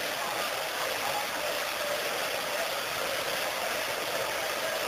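Large crowd's steady hubbub: many voices talking and calling at once, blended into a continuous wash of noise.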